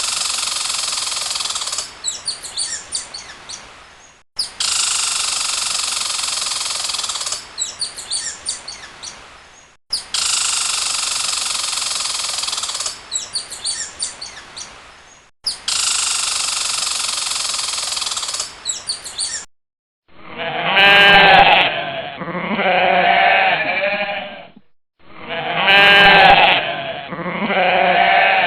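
A goat bleating: four loud, wavering calls in two pairs, starting about two-thirds of the way in. Before that, a noisy hiss-like animal sound is repeated four times, each about three seconds long and trailing off into short crackly chirps.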